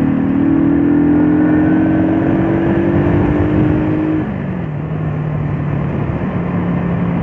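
Shineray Jet 50cc scooter's single-cylinder engine running under throttle, its note slowly rising, then dropping to a lower steady note about four seconds in as the throttle eases. A steady rush of wind and road noise runs underneath.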